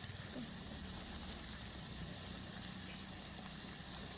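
Food sizzling in a pan on a camping stove, a steady low sizzle.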